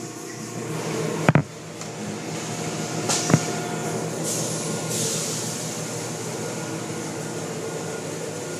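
Automatic car wash heard from inside the car: a steady machinery hum with hissing water spray and cloth wash strips sweeping over the car. Two sharp knocks, about a second and three seconds in.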